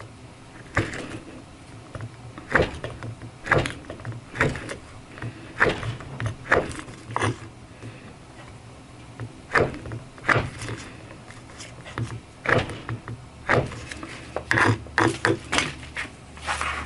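S90V pocket knife slicing through a 15-amp power cord: a short, sharp crunch with each cut, repeated roughly once a second, coming faster in a quick run of cuts near the end.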